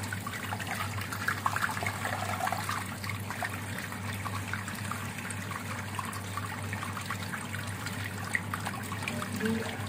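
Backwash water from a home filter tank running steadily out of a PVC drain pipe and splashing onto a wet floor, with a steady low hum underneath. The backwash water now runs clear.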